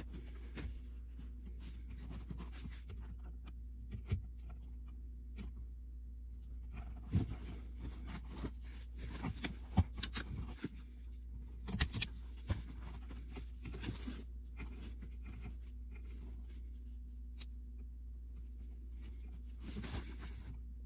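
Hands handling trailer-wiring leads and connectors, with rustling and scattered sharp clicks from a hand wire-stripping tool, over a steady low hum.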